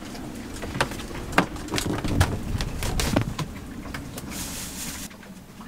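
Scattered knocks and clicks of hands handling plastic water hoses and fittings in a boat's bilge under lifted floorboards, with a brief hiss near the end.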